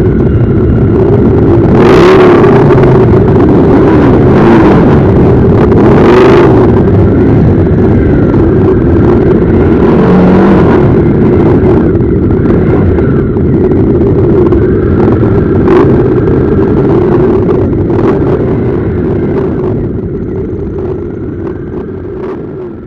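Motorcycle engines running and revving in a mass ride, a dense loud din with a few sharper surges in the first several seconds. The sound fades out gradually over the last several seconds.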